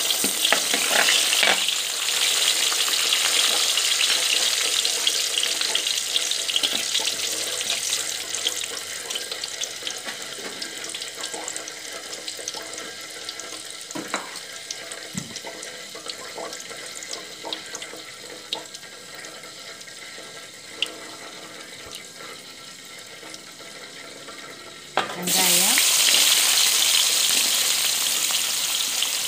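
Mustard seeds and urad dal sizzling in hot oil, the hiss slowly fading, with a few sharp pops as the seeds crackle. About 25 seconds in, sliced onions go into the oil and a louder, steady sizzle starts suddenly.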